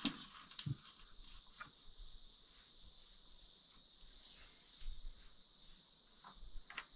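Steady, faint, high-pitched chirring of crickets or other insects, with a few faint clicks and knocks scattered through it.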